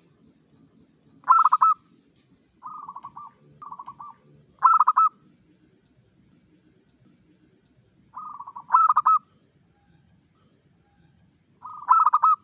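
Zebra dove (perkutut, local Javanese type) singing: repeated phrases of quick rolling coos, softer runs of notes alternating with louder stuttering bursts, with a pause of about three seconds in the middle.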